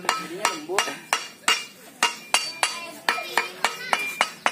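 Hammer striking the blade of a brass boat propeller laid on a wooden block, about three sharp ringing metallic blows a second. The blade is being bent to set the propeller's shape.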